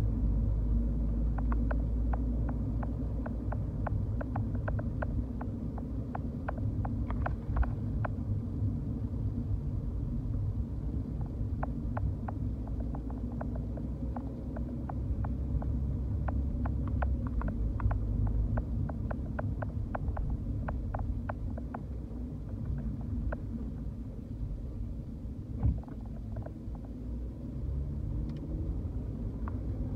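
Car driving along a street, heard from inside the cabin: a steady low rumble of engine and tyres on the road, with many small irregular ticks and clicks. Two brief knocks stand out, one about a quarter of the way through and one near the end.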